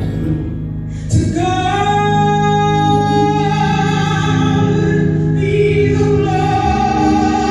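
Gospel song: a woman singing over an instrumental accompaniment. Her voice comes in about a second in and holds long, sustained notes.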